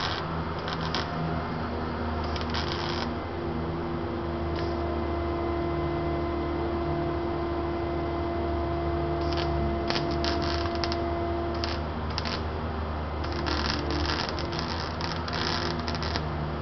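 Overhead arc welding on a car's underbody steel: short runs of hissing, crackling arc near the start, then a pause, then a longer run from about nine seconds in and repeated bursts toward the end. A steady low hum lies under it throughout.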